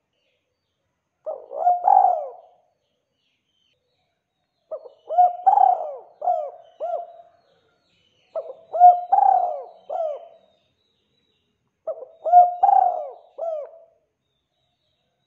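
Spotted dove (tekukur) cooing: four phrases of several short coos each, repeated about every three and a half seconds with silent gaps between them. The first phrase is shorter than the rest.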